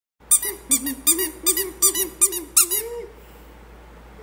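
A squeaky toy squeezed about nine times in quick succession, each squeak briefly rising and falling in pitch.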